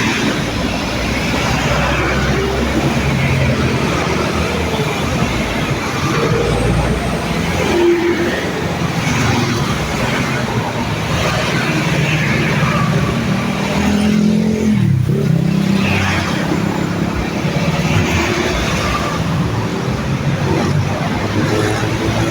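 Road traffic passing steadily: buses and other motor vehicles, with engine rumble and tyre noise. About fifteen seconds in, a passing engine's note drops in pitch.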